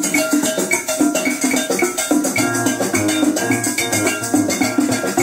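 A demonstration stereo record playing on a Magnavox portable record player through its own speakers: instrumental music with a steady beat, a bass line coming in about two seconds in.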